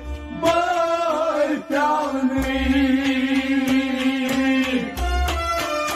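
Man singing a Kashmiri Sufi kalam to harmonium accompaniment. The voice holds one long note through the middle, and steady drum beats come in more strongly near the end.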